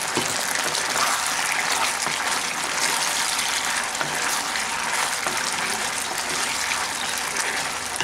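Steady sizzling hiss of the thickened chilli paneer sauce in the hot pan.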